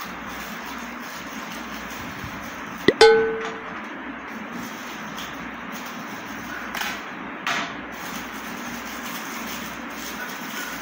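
Foil gift wrap on a small cardboard gift box being cut with a box cutter and torn, with two short crinkly tears near the middle. About three seconds in, a single sharp metallic ding rings and fades within half a second, over a steady background hiss.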